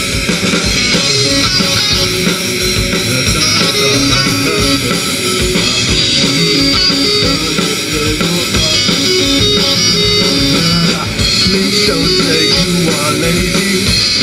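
Live rock band playing through PA speakers: electric guitars, bass, keyboard and drum kit.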